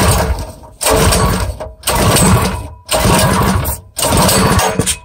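Predator 212 single-cylinder four-stroke engine being pull-started with its recoil starter: five quick pulls about a second apart, each cranking the engine over briefly, without it catching and running.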